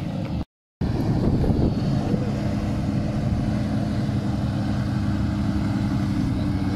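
Off-road 4x4's engine running steadily as it crawls the rock obstacle, cut off by a brief gap of silence about half a second in.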